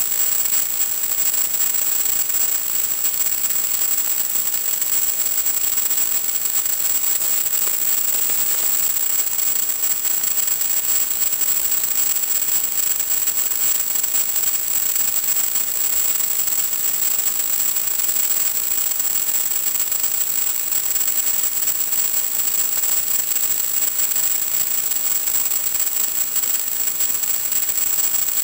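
Steady static hiss with a thin, steady high-pitched tone running under it, the noise of an analog FPV video link's audio channel.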